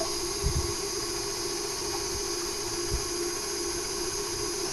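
KitchenAid Artisan stand mixer running steadily at a low speed, its whisk beating egg whites in the steel bowl: a constant motor hum with a whirring hiss.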